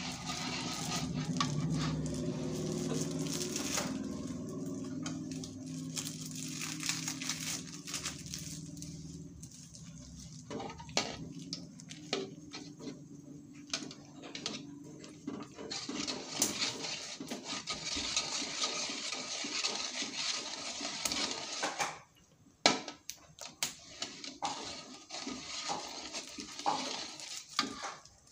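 Metal spatula scraping and clinking irregularly against an aluminium wok as plastic is stirred and pressed in shallow hot cooking oil.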